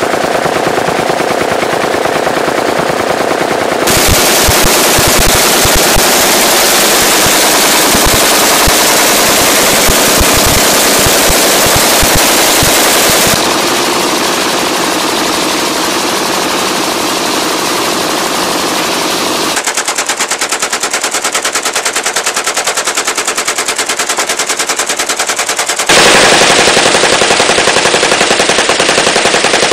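Sustained full-automatic gunfire from several guns in turn, starting with an AK-pattern rifle fed from a drum magazine. The sound changes abruptly four times as one gun gives way to another.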